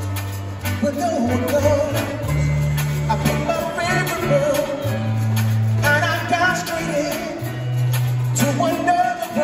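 Live band music played over an arena's amplified sound system, with a singer's melody over a bass line that moves in long held notes.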